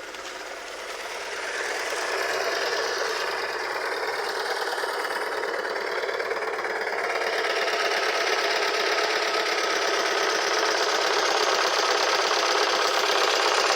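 VW engine running with a fast, steady ticking clatter, louder over the first two seconds and then even: the sound of a cracked ignition coil pack.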